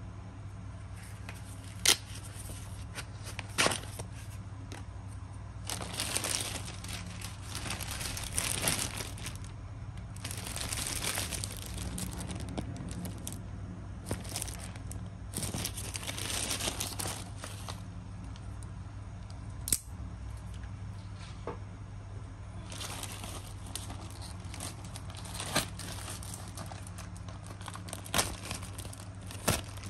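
Plastic courier mailer bags handled and pulled open, crinkling and rustling in several stretches, with a few sharp clicks along the way, over a steady low hum.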